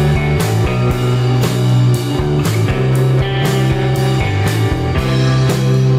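Background rock music with electric guitar, bass and drums keeping a steady beat.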